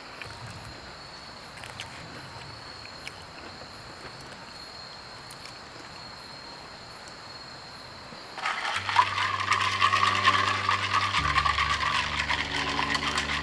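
Quiet outdoor ambience with a steady high insect trill. About eight seconds in, a loud, dense crackle of many small clicks begins, and background music with low sustained bass notes comes in under it.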